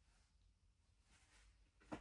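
Near silence: room tone, with a faint soft rustle a little past the middle and a single sharp click near the end.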